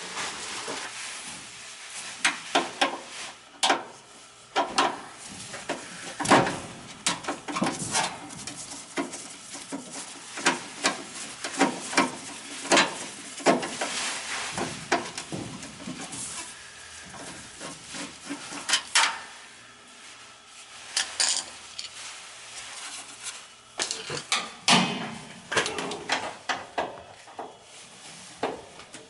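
Irregular metallic clanks and knocks of hand tools and metal parts being handled, from work on a belt-driven gas furnace blower with a broken pulley.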